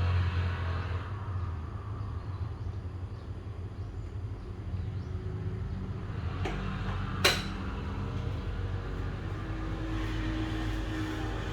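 Low rumble, loudest at the start and easing off, with a single sharp click a little after seven seconds in.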